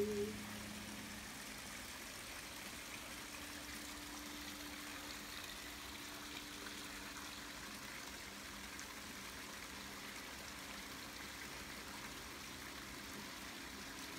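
Faint, steady trickle of a small garden waterfall spilling over rocks into a pond.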